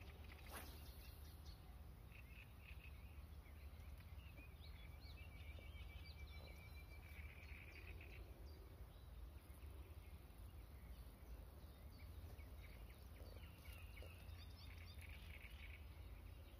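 Faint outdoor quiet with birds chirping and calling, including a longer trill in the middle, over a steady low rumble. There is one brief swish about half a second in, as the fishing rod is cast.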